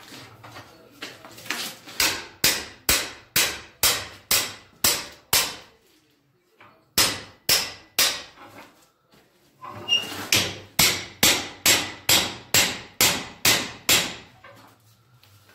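A hammer striking the steel Acrow prop and strongboy, knocking them tight into place. The sharp, ringing blows come about two a second in several runs, with brief pauses between.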